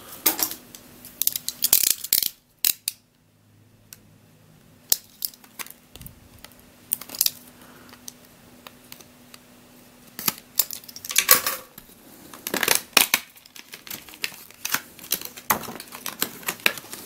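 Plastic twisty puzzle and its packaging being handled, giving irregular clicks, taps and short rustles.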